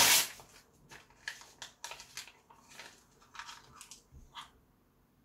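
Printed paper photo torn off with the teeth and chewed: a loud ripping rush at the start, then a run of short, irregular crinkly crunches from the chewed paper that stops about four and a half seconds in.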